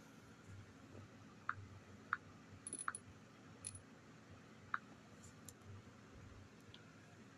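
Quiet room hum with a few short, sharp clicks, four of them spread over about three seconds.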